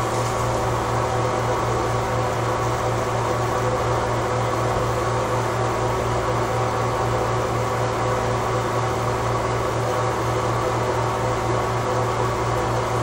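Steady mechanical hum with a strong low tone and an even hiss, like a fan or appliance motor running without change.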